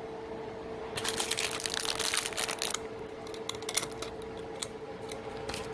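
Crinkling and rustling of packaging being handled for about two seconds, followed by a few light clicks, over a faint steady hum.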